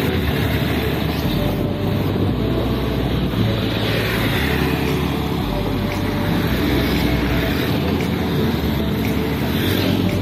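Street traffic noise with motorbike engines, mixed with steady wind noise on the microphone of a moving bicycle.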